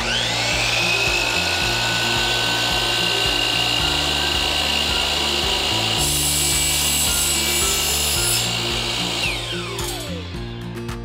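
DeWalt sliding compound miter saw spinning up to a steady high whine. About six seconds in, its blade cuts through a hollow metal rod for about two seconds, adding a harsh grinding noise. Near the end the motor winds down with a falling whine.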